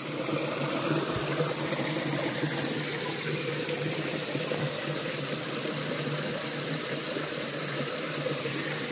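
Steady rush of flowing river water, with a faint steady low hum underneath.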